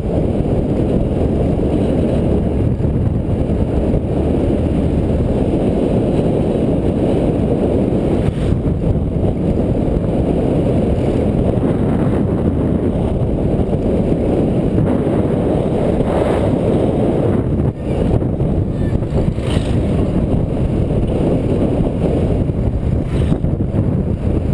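Boda boda motorcycle taxi under way: its small engine running steadily, mixed with wind rumble on the microphone.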